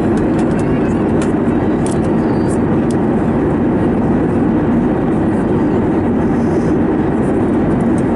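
Steady rumble of engine and airflow noise inside the cabin of an Airbus A321neo with CFM LEAP-1A engines, descending toward landing, with a few faint clicks in the first three seconds.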